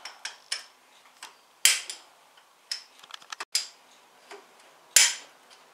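Irregular sharp metallic clicks and taps of a small hand tool prying the plug caps out of a Porsche 944 Turbo's camshaft housing, with a quick run of small ticks in the middle and three louder clacks, the loudest near the end.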